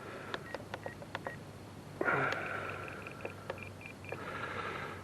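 A series of short electronic beeps from radio-control gear being readied for flight, mixed with small sharp clicks. A few single-pitch beeps come early, then a quick run of about eight higher beeps.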